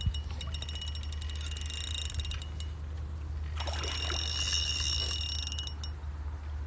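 Fishing reel ratchet clicking rapidly with a ringing metallic tone, in two runs of about two seconds each, a short pause between them.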